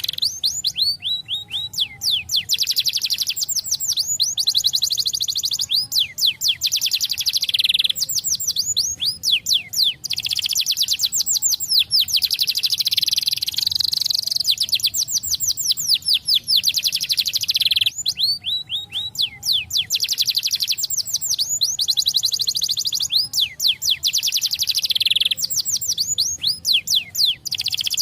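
Colour canary singing continuously: long trilled rolls of fast, quickly repeated sweeping notes, the roll changing to a new pattern every few seconds.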